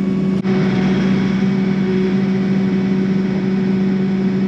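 Kubota compact tractor's diesel engine running steadily with a constant hum.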